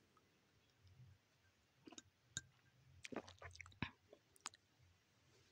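Near silence: room tone with a few faint, short clicks and small noises between about two and four and a half seconds in.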